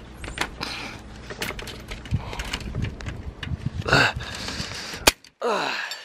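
Steel wrenches clinking and scraping against a padlock shackle and chain as they are levered together, ending in a single sharp crack about five seconds in as the padlock breaks.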